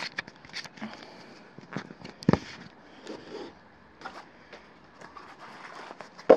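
Hands handling a small plastic camcorder on a tabletop: scattered clicks, knocks and light rustles, with a sharp knock about two seconds in and a loud click at the end.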